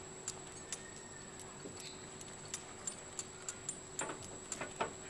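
Irregular light metallic clicks and clinks from a steel-mesh animal transport cage as the orangutan inside handles the bars, about a dozen in all, with a few louder knocks near the end.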